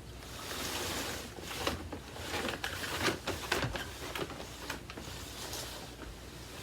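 Handling noise from an upright vacuum cleaner's plastic parts being fitted and moved: a brief rustle, then a series of irregular clicks and knocks.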